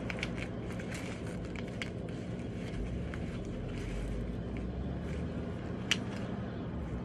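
Small makeup items such as lipstick tubes being handled and tucked into a fabric bag pocket: light rustling and small clicks, with one sharp click about six seconds in, over a steady low hum.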